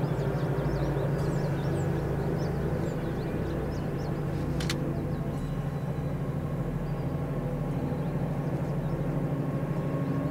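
Colas Rail Class 70 diesel locomotive's V16 engine running steadily with a low, pulsing drone as it hauls a loaded train of bitumen tank wagons, with birds chirping over it. A single sharp click sounds about halfway through.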